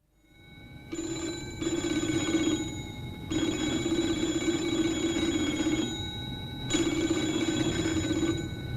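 Telephone bell ringing in three long rings with short pauses between them.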